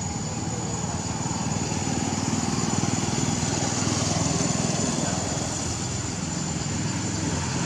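A small engine running steadily, with a thin, steady high-pitched whine over it.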